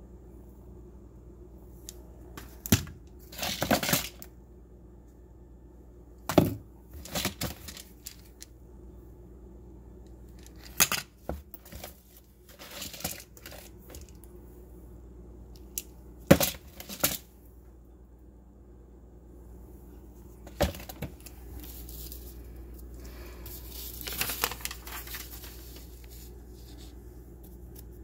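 Handling noise: a series of sharp hard knocks at irregular intervals, each followed by a brief rustle or scrape, with a longer rustle near the end.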